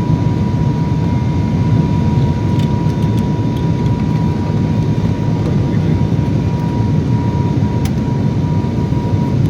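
Airliner cabin noise during the landing approach: a loud, steady rush of engines and airflow with a thin steady whine held throughout.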